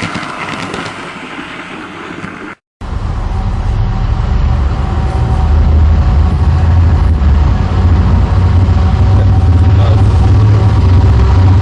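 A diesel locomotive engine running, a loud steady low rumble that starts suddenly after a cut about two and a half seconds in and grows louder over the next few seconds. Before the cut there is a fainter mixed hum.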